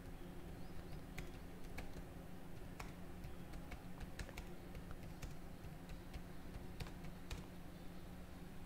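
Computer keyboard being typed on: irregular, quick key clicks as a short message is typed out.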